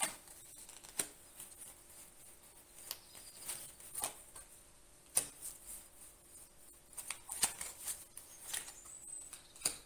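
Tarot cards being handled: drawn from the deck and laid one by one onto a cloth-covered table. Soft scattered clicks and rustles of card stock, a dozen or so spread irregularly through the time.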